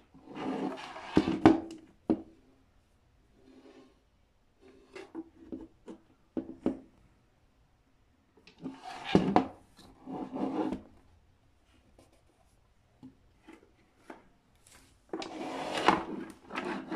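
A computer power supply's metal case being handled, slid and turned on a tabletop: several bursts of scraping and rubbing with sharp knocks, the loudest near the start and near the end.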